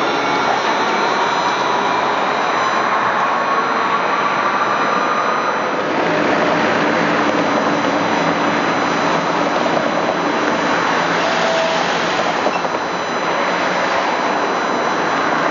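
A tram running past, its electric drive whining in a rising pitch as it speeds up, then a loud, steady rush of wheel and running noise from about six seconds in.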